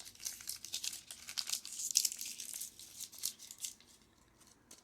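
Plastic toy-packaging wrappers crinkling and being torn open by hand, a dense run of crackles that dies down about four seconds in, with a couple of last crackles near the end.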